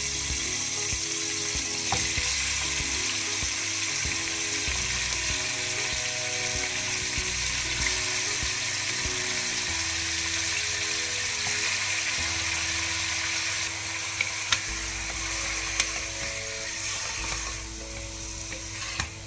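Raw mutton pieces sizzling as they fry in hot oil in an aluminium pressure cooker, a steady hiss, with a few light knocks in the second half. The sizzle eases slightly near the end as stirring begins.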